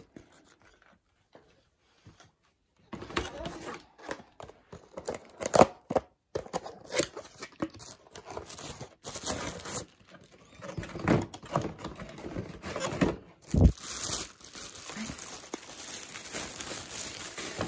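Plastic packaging crinkling and rustling while cardboard box flaps are handled during unpacking, with a few sharp knocks of items set down. It starts about three seconds in after a near-quiet start.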